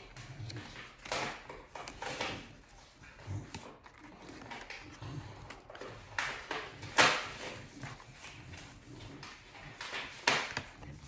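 Cardstock pages and paper flaps of a handmade scrapbook folio being unfolded and handled, with a ribbon tie pulled loose. Several short rustling swishes, the loudest about seven seconds in.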